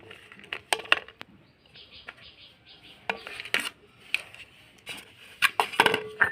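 Dry fruits and a spoon clinking into a bowl: a scatter of sharp clicks, several with a short ring, and a brief light scraping in the middle.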